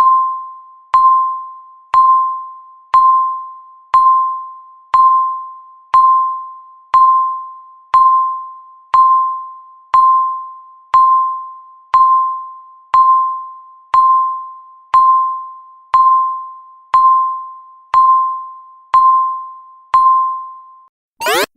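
Countdown timer beep: a short electronic tone once a second, each clear and mid-pitched and fading quickly, ticking off the last seconds of the count. Near the very end the beeps stop and a loud alarm of rapid rising sweeps starts as the timer hits zero.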